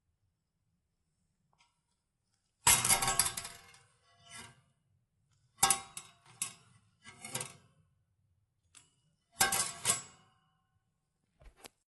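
A series of sharp clinks and clattering knocks from hard objects being handled, in several separate bursts with short ringing tails.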